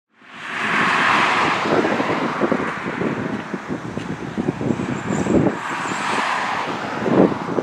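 Road traffic: cars passing on a busy road with steady tyre and engine noise, fading in over the first half-second.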